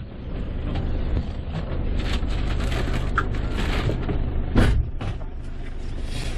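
Road and engine noise inside a moving van: a steady low rumble with scattered rattles and knocks, and one heavy thump about halfway through.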